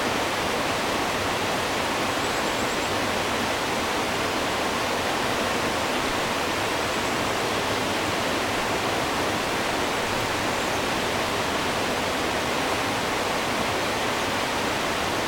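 Steady, even rushing noise with no change in level or pitch.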